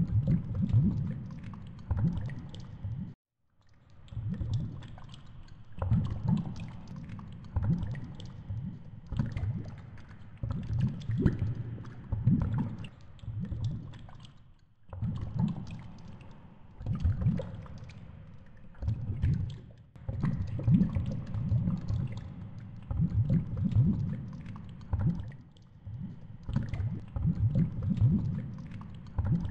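Muffled underwater audio from a GoPro in its housing on a fishing line: irregular low thumps and rumbles with faint clicks as the rig sways in the water. The sound drops out briefly twice.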